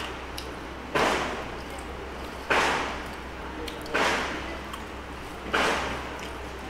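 Four loud bangs at an even pace, about one every second and a half, each dying away over half a second: construction work in a neighbouring building.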